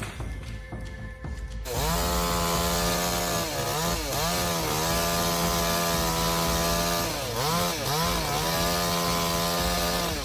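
Chainsaw engine starts up loud after a quieter second or two and runs at high revs as it cuts wood. It eases off and climbs back to full speed twice.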